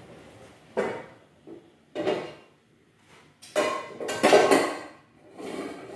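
A metal cooking pot being pulled out of a low kitchen drawer among other pans: a series of clanks and knocks, with the loudest clatter from about three and a half to four and a half seconds in.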